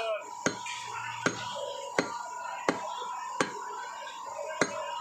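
Butcher's cleaver chopping beef fat on a wooden log chopping block: about six sharp chops, spaced a little under a second apart.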